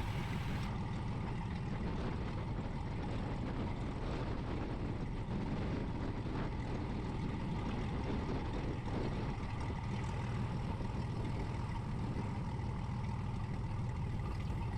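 Light aircraft's piston engine running steadily at low taxi power, heard from the cockpit as an even, low drone.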